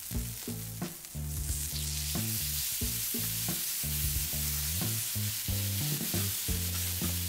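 Ribeye steaks sizzling on a hot Weber Q griddle and grill grates as one steak is flipped with metal tongs. The sizzle gets louder about a second and a half in.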